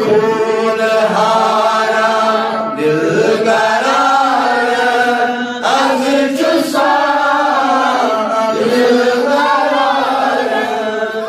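A man chanting a manqabat, a devotional poem in praise of the martyrs of Karbala, in long drawn-out melodic phrases that slide up and down in pitch. A steady low held tone runs beneath the voice.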